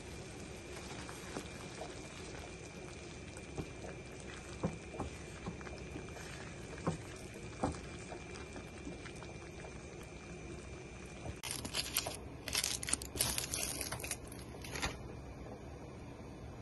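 Thick biryani rice mixture simmering in a pan, bubbling with scattered soft pops. About eleven seconds in, a few seconds of louder rough, scraping bursts break in.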